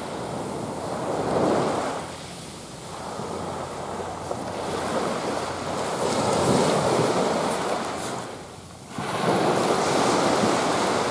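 Small surf breaking and washing up a sand beach, swelling and easing every few seconds.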